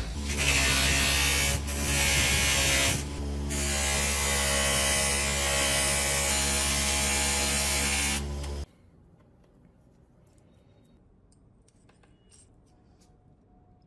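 Electric buffing machine running steadily with a polishing wheel working metal parts, dipping briefly a few times; it cuts off suddenly about nine seconds in, leaving near silence with a few faint clicks.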